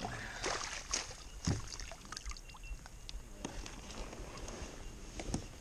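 A landing net holding a big flathead being handled aboard a plastic kayak: irregular knocks, clicks and rattles, the loudest knock about a second and a half in.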